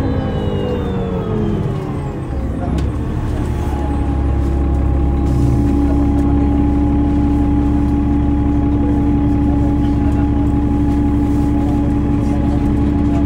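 2005 New Flyer D40LF city bus with a Cummins ISL 8.9 L turbo-diesel and Voith DIWA automatic transmission: a drivetrain whine falls in pitch over the first two seconds or so as the bus slows. From about three and a half seconds, a steady diesel drone holds with a constant whine on top.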